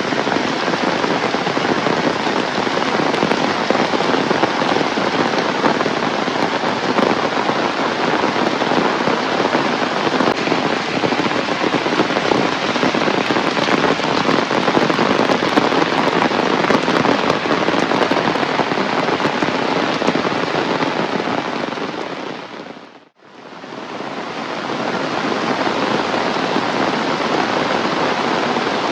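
Heavy rain pouring down steadily, a dense, even hiss of drops. About 23 seconds in it fades out almost to silence for an instant, then fades back in.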